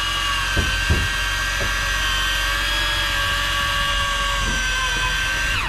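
Electric fishing reel's motor winding in line with a steady high whine while reeling in a hooked fish. Near the end the whine drops in pitch and cuts off as the reel stops.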